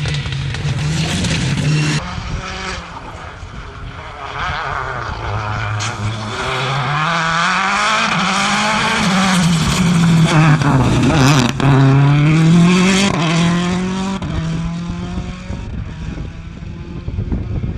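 Rally car engines at full speed: the Renault Mégane RS briefly, then a Citroën C4 WRC approaching with its engine revving up and down through gear shifts. It is loudest as it passes, with the pitch dropping, then it fades as the car pulls away.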